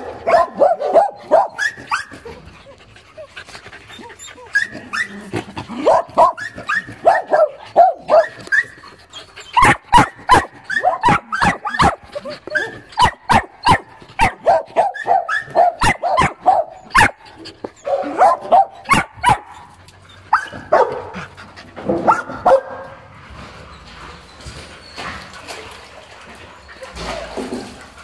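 Dogs barking in repeated bursts of short, sharp barks, densest over the middle stretch and thinning to fainter sounds over the last few seconds.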